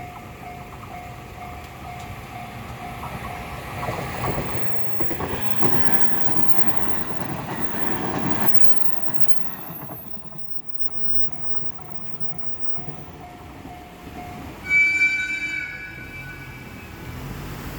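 Japanese level-crossing warning bell ringing in a steady rapid beat, about three strikes a second, while a train rushes through the crossing for about five seconds. Near the end the bell stops and a train horn sounds loudly for about two seconds.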